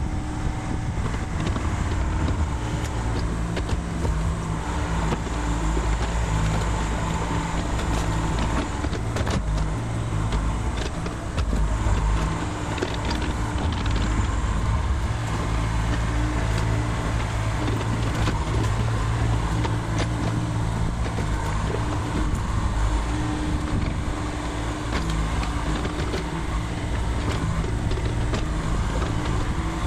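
Mini excavator's diesel engine running steadily while the machine tracks and swings its boom, with scattered knocks and clatter.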